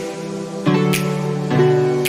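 Background music: strummed acoustic guitar chords changing about every second, with a light beat.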